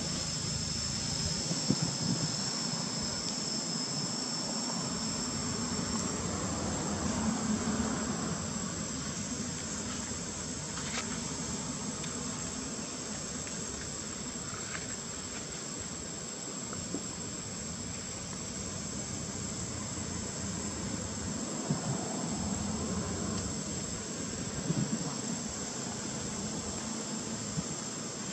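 Insects in the surrounding trees chirring with a steady high-pitched drone; a second, slightly lower drone cuts out about six seconds in. A low background rumble runs underneath.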